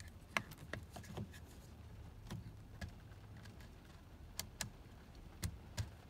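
Faint, irregular clicks of a replacement dashboard headlight switch being worked by hand, its knob and dimmer thumbwheel clicking through their detents.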